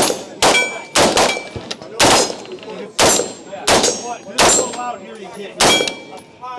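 AR-15-style rifle fired semi-automatically, about nine shots at an uneven pace half a second to a second apart. A short metallic ring follows some of the shots, typical of steel targets being hit.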